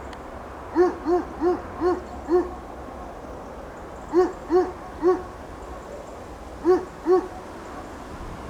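An animal calling in short pitched notes, each rising and falling, about 0.4 s apart in three bouts: five, then three, then two. The calls sit over a steady background noise.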